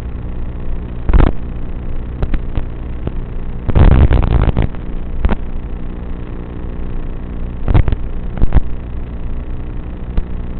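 Emax Tinyhawk 3 micro quadcopter's motors buzzing steadily, interrupted by several short loud rushes or knocks, the longest about four seconds in.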